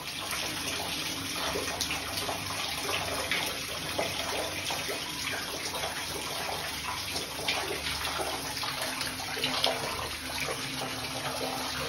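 Water pouring steadily from ceiling fittings and splashing down, with many small splashes; it is leaking from a burst geyser (hot-water cylinder) in the ceiling.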